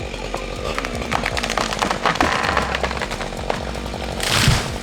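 Chainsaw idling with a steady low hum, over a run of sharp clicks and cracks. A short loud rush of noise comes near the end.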